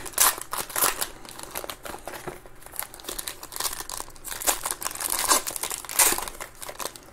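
Foil trading-card pack being torn open and crinkled in the hands: an irregular run of crackling and tearing, with a few sharper crinkles about five and six seconds in.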